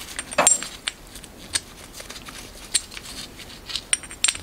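Scattered light metallic clicks and clinks from a small machined metal gear and its arbor being handled and lifted off a chuck, a few of them with a brief high ring, most clearly near the end.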